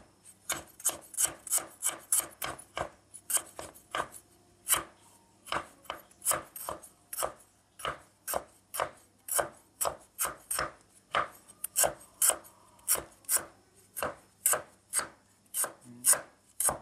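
Cleaver slicing lemongrass thinly on a plastic cutting board: a steady run of sharp chops, about three a second.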